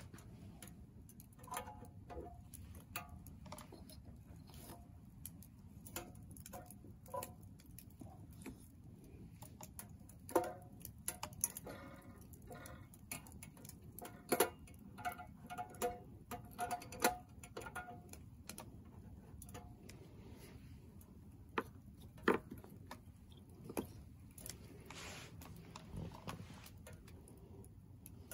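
Firewood crackling in a small Soomloom MECA wood stove: irregular sharp pops and snaps, a few with a brief ring, coming thickest in the middle of the stretch, over a low steady hiss.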